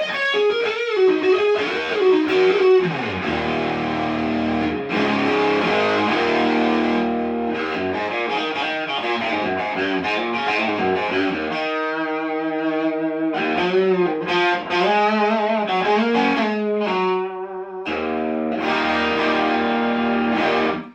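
Electric guitar played through a hand-built Distortion+ style distortion pedal: a run of distorted single notes and held chords that stops suddenly at the end.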